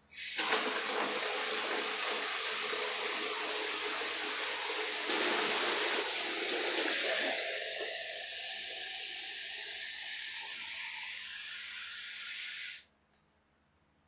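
Water running from a wall tap and splashing into a plastic mug and a bucket below; the flow is steady and stops suddenly near the end.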